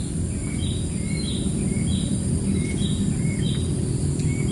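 Outdoor ambience: a steady low rumble with short, high chirping calls repeating about twice a second over it.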